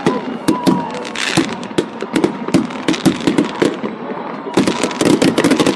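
Fireworks going off: irregular sharp bangs and crackles, coming thick and fast in a rapid run near the end.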